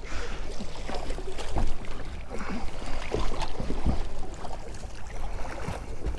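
Water slapping and sloshing against the side of a small fishing boat, with a few short knocks scattered through.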